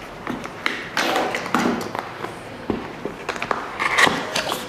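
A sealed cardboard battery box being opened by hand: irregular taps and light knocks, with a few short bursts of cardboard scraping and rustling as the packaging is pulled apart.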